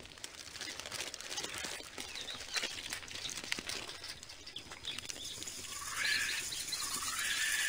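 Sound effect of a crowd of small creatures scurrying and fluttering: a rustling patter full of little ticks. High chirps come in about six seconds in.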